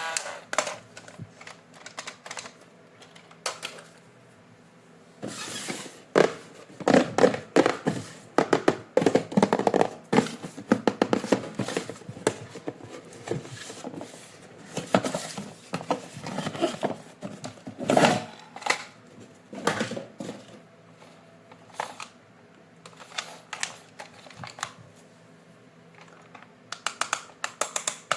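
Hands handling plastic toy parts and packaging: irregular clicks, taps and light rattles, coming in dense clusters with short pauses between.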